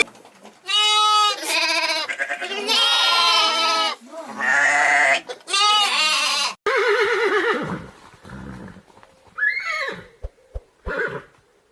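Goats bleating: a run of wavering, quavering calls, some overlapping, with fainter ones in the last few seconds.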